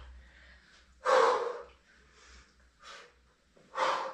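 A person breathing out forcefully in time with the reps of a standing cross toe-touch exercise: a loud puff of breath about a second in and another near the end, with fainter breaths between.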